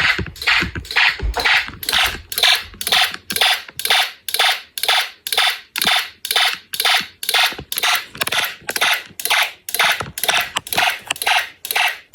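Fire alarm horn sounding in a fast, even pulse pattern, about two and a half short blasts a second.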